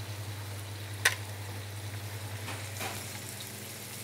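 Prawns sizzling in olive oil in a frying pan, over a steady low hum, with one sharp knock about a second in.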